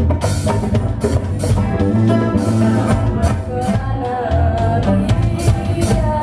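Live band playing: a woman singing over acoustic guitar, electric bass, drum kit and a hand drum, with a steady beat.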